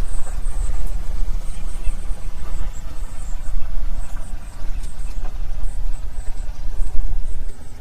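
Outboard motor of an aluminium fishing boat running, a loud, uneven low rumble as the boat turns away from the landing onto the lake.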